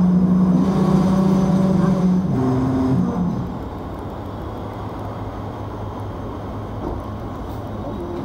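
Hong Kong double-decker tram's electric running gear giving a loud steady hum. Its pitch shifts about two seconds in, and it dies away by about three and a half seconds, leaving a quieter low hum and street noise.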